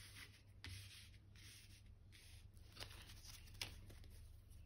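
Faint rubbing and a few light taps of tarot cards being slid apart on a woven cloth, over near silence.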